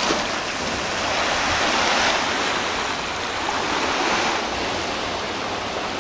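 Sea surf washing and swirling over a rocky shoreline. It is a steady rush that swells twice and turns duller about four and a half seconds in.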